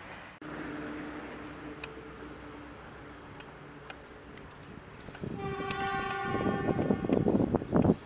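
Approaching diesel locomotive sounding its horn, a steady multi-tone blast starting about five seconds in and lasting about two seconds, over the low hum of the engine; loud irregular rumbling follows near the end.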